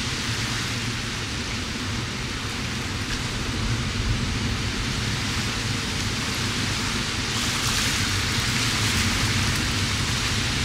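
Ocean surf breaking and washing over a reef: a steady rushing hiss over a low rumble, growing brighter about seven seconds in.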